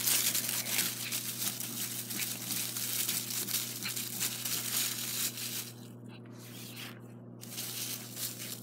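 Dry fallen leaves rustling and crunching as feet and a small dog move through them. It is busiest for the first five seconds, then quieter with two short lulls.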